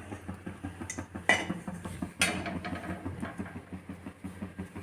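Metal utensils clinking and knocking against a cooking pan, with three sharper clinks in the first half and smaller taps throughout, over a low steady hum.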